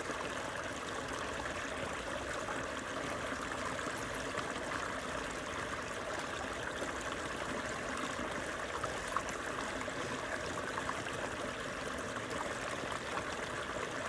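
Small stream spilling over a low rocky cascade: a steady rush of running water.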